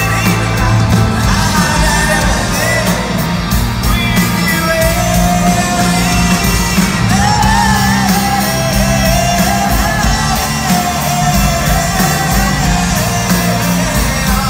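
Pop-rock band playing live with a male lead singer, loud and steady, the vocal holding long sung notes through the middle of the stretch.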